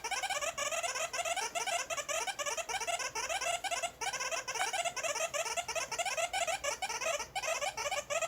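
Sound effect of rapid, high-pitched squeaking, several squeaks a second, cutting off suddenly at the end.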